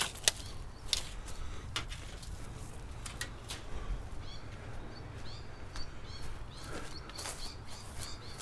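Birds chirping outdoors in quick, short repeated calls through the second half, after a few sharp clicks and knocks in the first half, over a low steady background rumble.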